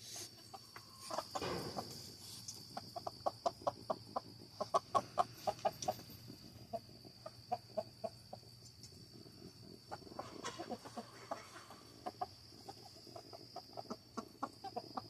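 Chickens clucking: runs of short, quick clucks, densest a few seconds in and again near the end.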